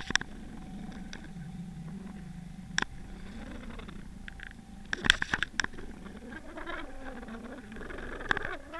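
Underwater sound picked up through a submerged camera's housing: a steady low rumble broken by sharp clicks and knocks at the start, once about 3 s in and in a cluster around 5 s, with a faint wavering hum rising in after about 6 s.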